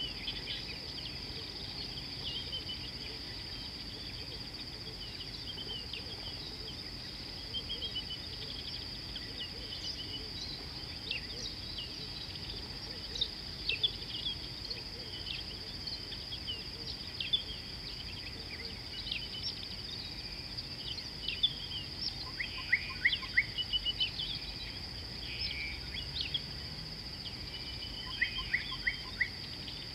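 Many birds chirping and calling in short scattered notes over a steady, high-pitched insect drone. Two louder runs of quick calls stand out in the last third.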